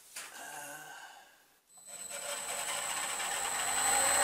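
A click, then about two seconds in a milling machine's spindle motor starts and runs up to speed: a steady machine noise with a high whine, growing louder over a couple of seconds and then holding.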